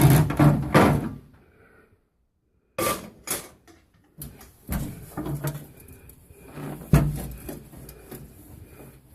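A microwave turntable being taken out and handled: a clatter of knocks and rattles, then a few separate sharp knocks over quieter scraping and rubbing.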